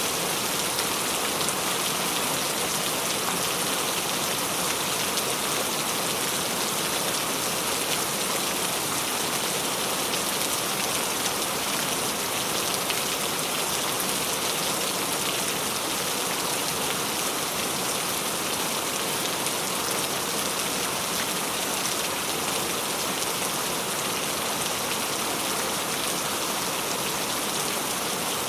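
Steady rain falling, a dense even hiss of many drops with faint individual patters.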